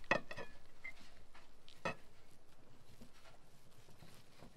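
Kitchen knife slicing through a cooked meat roll on a ceramic plate, the blade clicking against the plate: twice right at the start and once about two seconds in, the first click with a brief ring.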